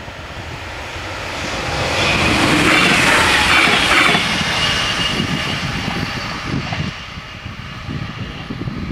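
Arriva Stadler GTW railcar passing over a level crossing at speed. Its sound swells over the first two seconds, is loudest about three to four seconds in, then fades as it moves away.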